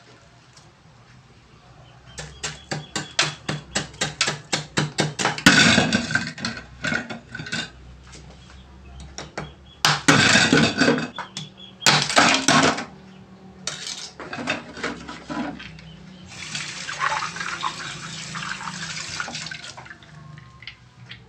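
A large kitchen knife chopping at a plastic bag of ice on the counter: a quick run of knocks, about four a second, then several loud crunching clatters as the ice is broken up and the cubes knock about. Near the end, a few seconds of running water.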